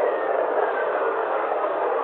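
Voyager plasma-wave recording of Jovian whistlers played as sound: a steady hiss with a thin whistle tone gliding downward in pitch that fades out about a second in. The whistlers are radio waves set off by lightning on Jupiter, with the higher pitches arriving first.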